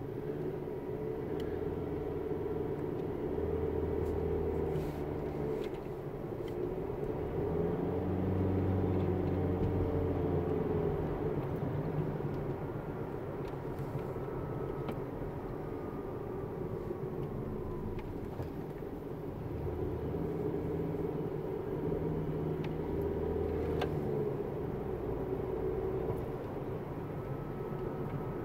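Car driving along a road, heard from inside the cabin: steady engine and tyre noise, with the engine note rising and easing off several times.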